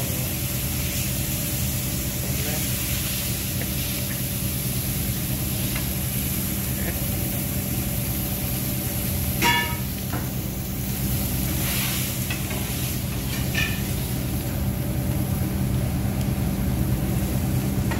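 Steak sizzling on a commercial flat-top griddle, an even hiss over the steady hum of the kitchen's exhaust hood fan. A brief high squeak comes about halfway through.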